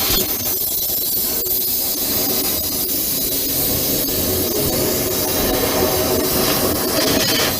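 Steady hissing of a cutting tool cutting through a steel locomotive boiler tube.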